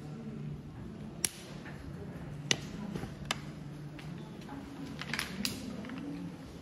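A low, indistinct murmur of visitors' voices, crossed by a few sharp clicks and taps, the loudest about two and a half seconds in.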